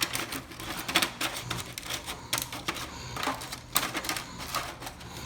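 Vanilla wafer cookies clicking and tapping against each other and the pan as they are laid close together: an irregular run of light, sharp clicks.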